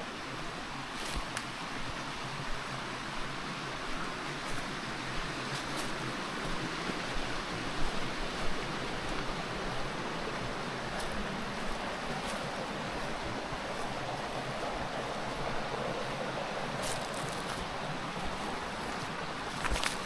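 Steady rushing of flowing water, with a few faint clicks.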